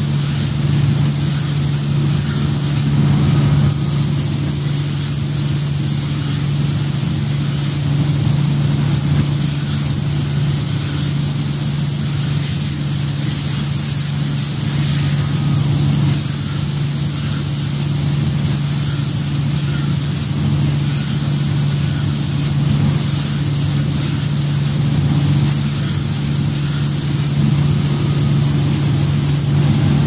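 Automatic five-axis spray painting machine and its spray booth running: a steady low hum with a constant high hiss.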